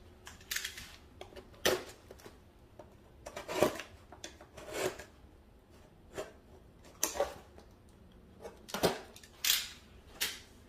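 A cardboard box being opened by hand: scattered short scrapes, rustles and taps as the tape on it is worked free and the flaps are pulled open.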